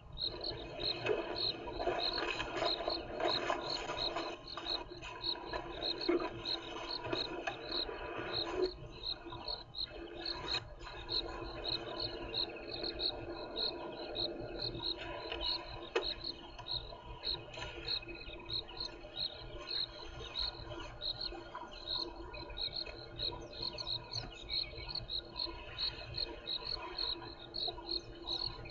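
An insect chirping steadily in a regular rhythm, about three short high chirps a second. Through roughly the first nine seconds there is also a lower rustling.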